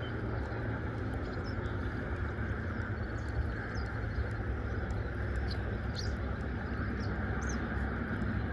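Birds chirping now and then, short thin calls scattered through, over a steady low rumble.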